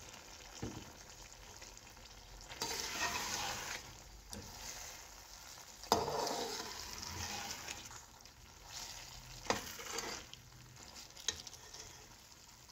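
Slotted steel spoon stirring and scraping through prawn manchurian gravy in a steel pot, with a few sharp clinks of metal on metal, over a low sizzle. Cornflour water is being stirred in to thicken the sauce.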